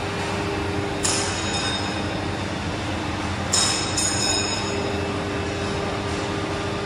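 Steady machine hum in a metal workshop, with two sharp metallic clinks that ring briefly, about a second in and again about halfway through, as a bent steel pipe is handled and knocks against metal.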